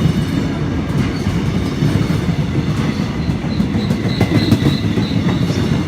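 Diesel-hauled passenger train running slowly along the station platform as it comes in to stop: a steady low rumble with the wheels clacking over the rail joints.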